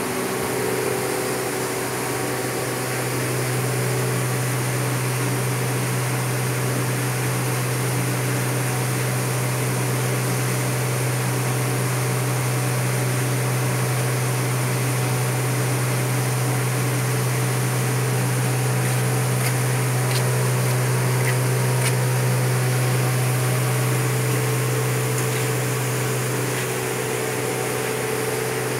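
Belt filter press running: its electric gear motor drive gives a steady low hum under an even mechanical hiss, a little stronger through the middle stretch, with a few faint ticks about two-thirds of the way in.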